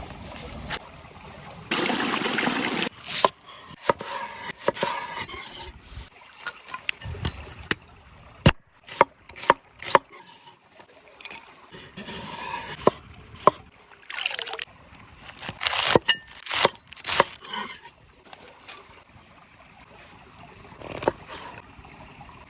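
Food-preparation handling sounds: irregular knocks and clicks with short rustling or scraping bursts, including a run of four sharp raps about half a second apart near the middle.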